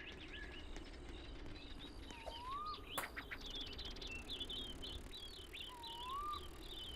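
Small birds chirping and twittering in quick, high notes that grow denser in the second half. Two whistled calls rise and fall, one about two seconds in and one near six seconds in. A single sharp click comes about three seconds in.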